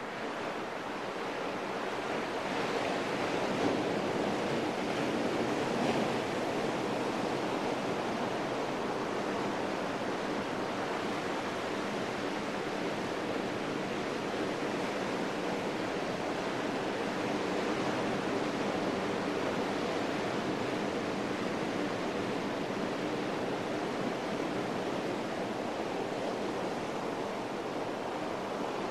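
Sea surf washing onto a sandy beach: a steady, even rush of waves.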